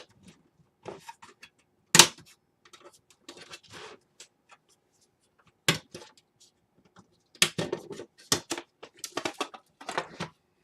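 Hard drive and mini-ITX PC case being handled while fitting the drive: scattered clicks and knocks, a sharp knock about two seconds in, and a quick run of clacks near the end.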